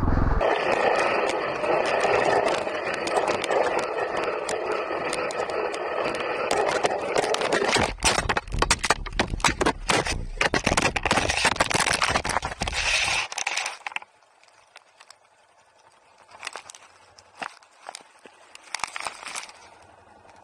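Dirt bike riding off-road, heard through an action camera mounted on the back of the bike: steady engine and wind noise, then a run of rattling knocks and cracks. About fourteen seconds in it cuts off sharply, leaving a low level with a few faint clicks.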